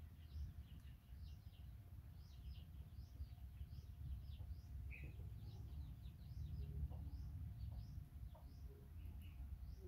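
Small birds chirping, with many short, quick, high rising calls repeating throughout, faint over a low rumble.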